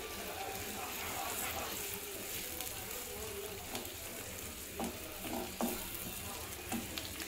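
Chopped onion, green chili and tomato sizzling as they sauté in melted butter in a nonstick frying pan, stirred with a wooden spatula that knocks lightly against the pan a few times in the second half.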